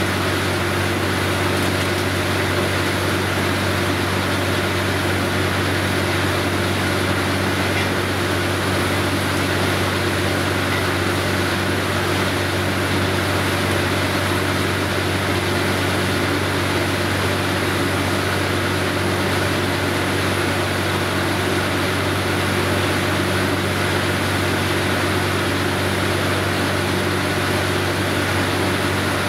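Truck-mounted borewell drilling rig running steadily while drilling, its engine-driven ELGi air compressor giving a constant low drone under an even hiss.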